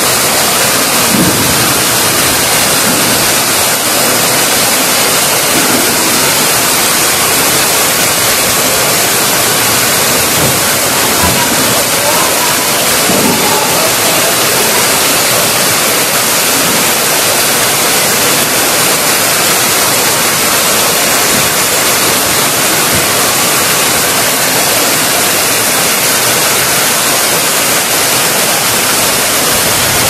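Waterfall swollen with seasonal water, a loud, steady rush of falling water.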